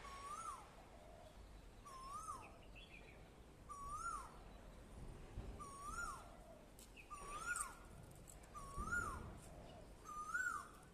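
A bird repeating one whistled call seven times, about every two seconds; each call rises, holds briefly, then drops sharply in pitch.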